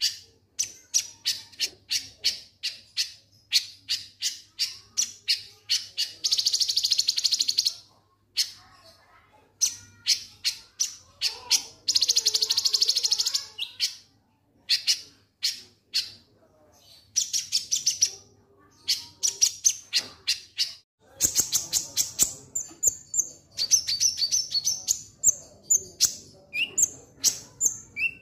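A konin (kolibri ninja sunbird) calling its 'ngek ngek' song: long series of sharp, rapid high chirps, broken by two longer buzzy trills about seven and twelve seconds in.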